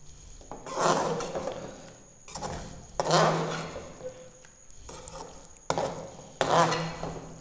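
A flat metal spatula scraping and stirring a thick lentil and okra mixture in a metal pot, in about three separate strokes a couple of seconds apart, with a short sharp clink shortly before the last one.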